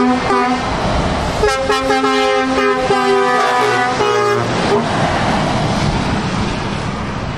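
Truck air horns sounding a chord in quick repeated blasts, first just at the start and again in a longer run from about a second and a half in until about four and a half seconds in. After that, the steady hiss of heavy tyres on the wet road as a truck drives past.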